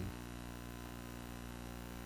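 Quiet room tone with a faint, steady electrical hum.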